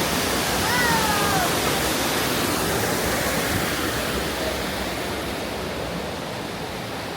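Steady rushing of falling water, easing off slightly toward the end, with a short gliding call about a second in.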